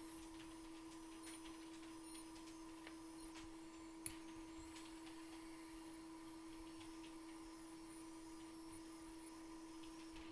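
Faint steady electrical hum with a thin high whine from bench equipment, under scattered soft ticks of a small blade scraping glue off a circuit board, with one sharper click about four seconds in.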